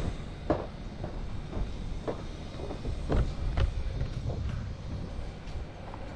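Crane truck's engine running steadily, with several sharp knocks scattered through it.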